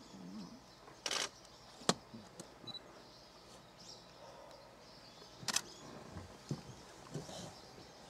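Camera shutters clicking: a rapid burst of frames about a second in and another about five and a half seconds in, with single clicks between. Faint high bird chirps are heard under it.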